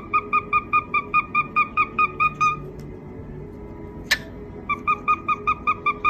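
A rapid, evenly paced run of short, nasal, honk-like beeps, all on one pitch, about five or six a second. It breaks off about halfway through, a sharp click follows, and the beeping starts again near the end.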